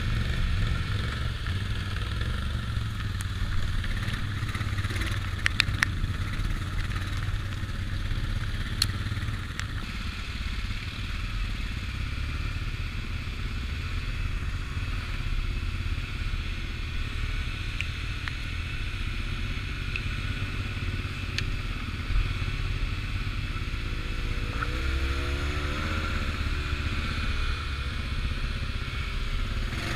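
ATV engine running at steady trail speed, with a few sharp knocks and rattles over bumps and a brief rise and fall in engine speed near the end.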